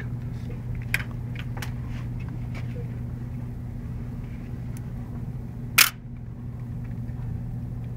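Steady low background hum, with a few faint clicks about a second in and one sharp, loud click a little before the six-second mark.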